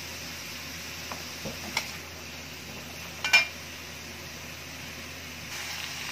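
Metal spatula knocking against an aluminium wok full of cut squash: a few light taps in the first two seconds, then one sharp, ringing clink a little past three seconds in as the spatula is set down in the pan.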